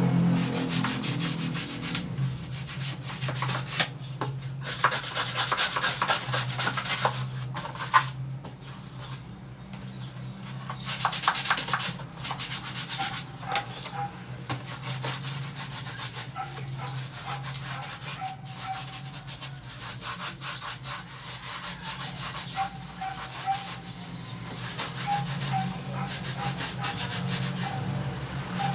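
Brush scrubbing dust off parts of a window air conditioner in quick, irregular runs of rubbing strokes, over a steady low hum.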